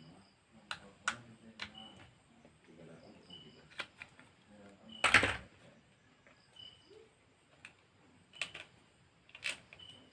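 Scattered sharp clicks and taps of hand work on a smartphone during a repair, about seven in all, the loudest about five seconds in, with faint voices underneath.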